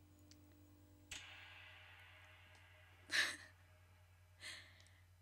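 A woman laughing quietly under her breath: two short breathy exhales about a second apart, the first one louder.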